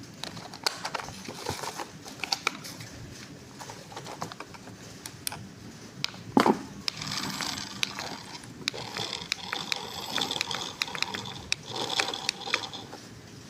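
Plastic toy mechanism clicking and rattling with many small knocks, one louder knock about six seconds in.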